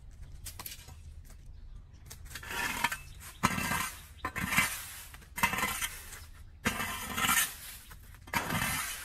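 A leaf rake scraping and dragging dry fallen leaves across a concrete pavement in about six quick strokes, starting about two seconds in.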